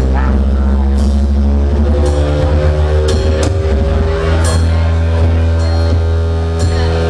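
Live rock band playing: held low bass notes under sustained keyboard chords, with scattered drum and cymbal hits about once a second.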